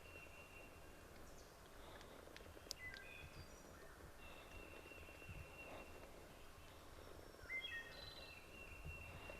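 Faint songbirds singing. Clear whistled notes, several held for a second or more, are mixed with short stepped phrases, over quiet outdoor background noise.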